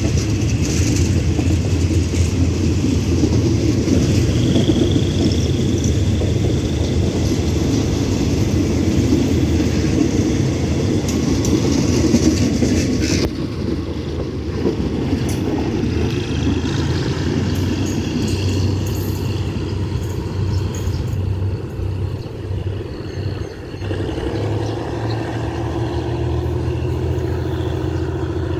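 Passenger coaches of a departing diesel-hauled train rolling slowly past, a steady rumble of wheels on the rails that is loudest in the first half and then eases as the train pulls away. A steady hum comes in near the end.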